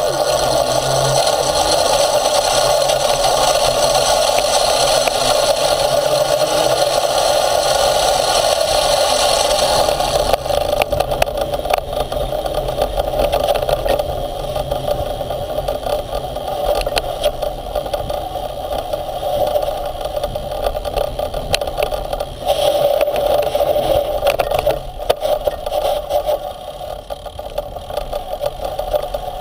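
Motorized off-road skate drive unit running under way over a dirt trail, close to the microphone. It is steady for about the first ten seconds, then uneven and full of rattles, clicks and scraping from the wheels and frame on the rough ground.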